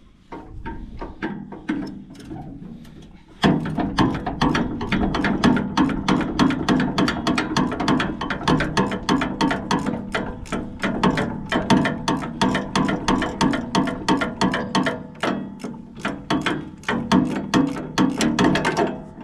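Ratchet wrench clicking rapidly, about five or six clicks a second, starting loudly about three and a half seconds in as a bolt on the combine header's knife guards is run in or out.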